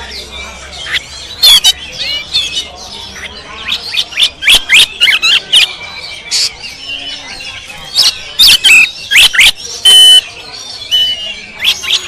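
Oriental magpie-robin (kacer) singing loudly at very close range: rapid strings of sharp whistled notes and harsh chips in bursts, with the loudest runs a few seconds in and again past the middle.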